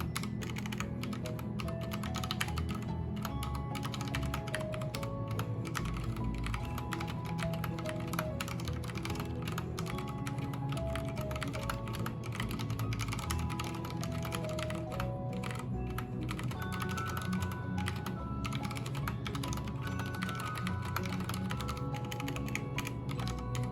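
Continuous typing on an Akko 3087 mechanical keyboard with Cherry MX Red linear switches: a steady stream of rapid, irregular key clacks, with background music playing underneath.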